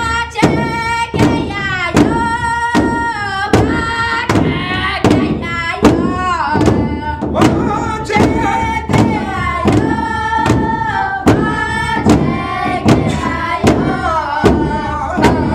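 Several drummers striking one large shared drum with sticks in a steady, even beat of about two to three strokes a second, while children's voices sing high phrases that slide downward over it.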